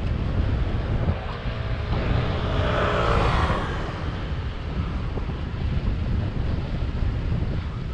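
A motor vehicle passes, its engine and tyre noise swelling to a peak about three seconds in and then fading, over a steady low wind rumble on the microphone from riding.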